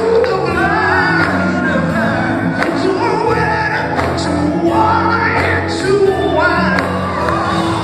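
Gospel group performing live: a lead singer into a microphone with backing vocals, over a band with drums and bass.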